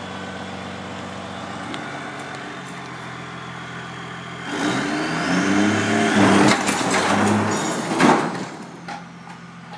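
Turbo-diesel Cummins engine of a Dodge pickup running steadily, then revving up under load about four and a half seconds in as it pulls a car's engine out. Metal clanks come during the pull, and a sharp bang near the end as the Mercedes OM617 engine and transmission tear free and the driveline breaks.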